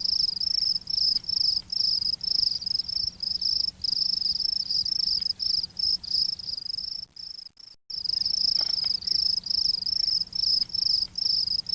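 Insect chirping, a continuous high-pitched trill of rapid short pulses, with a brief break about seven and a half seconds in.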